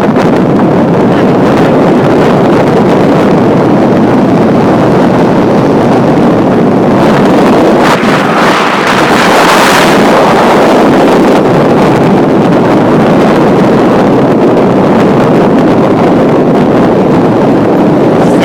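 Wind rushing over the microphone with road and engine noise while riding along at speed. The sound is a loud, steady roar that grows brighter for a few seconds about halfway through.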